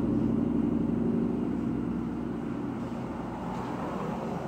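A vehicle engine's low, steady hum that fades over a few seconds.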